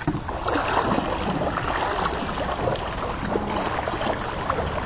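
Water splashing and churning as dragon boat paddles pull through it, heard as a steady noisy wash.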